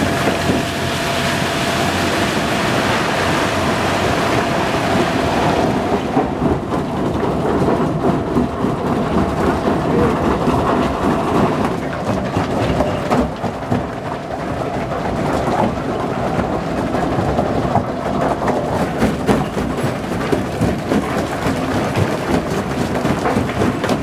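Lippmann jaw crusher running under load: a steady heavy rumble with constant clattering and knocking of rock being fed through and crushed. For about the first six seconds a dump truck's load of rock slides into the feed hopper, adding a hissing rush of falling stone.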